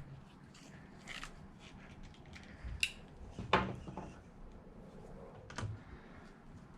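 Scattered light clicks and knocks of hands handling an RC car's ESC and its motor wires while positioning them, with one louder knock about three and a half seconds in.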